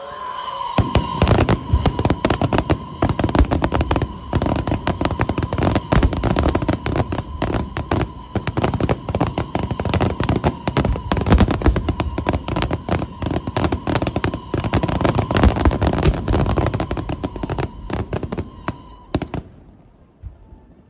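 Aerial fireworks barrage: a rapid, continuous stream of sharp bursts and crackles that stops fairly suddenly near the end.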